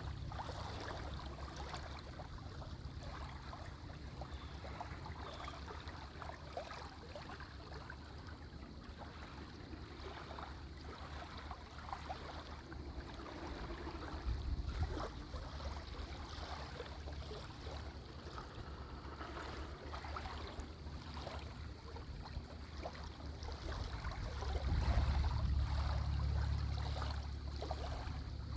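Small pond waves lapping rhythmically against the shore, a steady run of little splashes, over a low rumble that swells about halfway through and again, louder, near the end.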